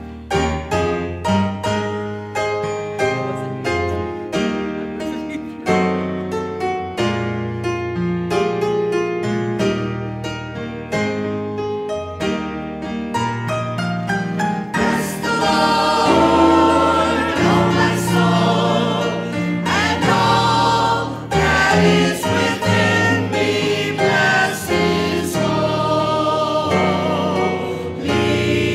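Church choir song: an instrumental introduction of short notes that die away quickly for about fifteen seconds, then voices come in singing over the accompaniment.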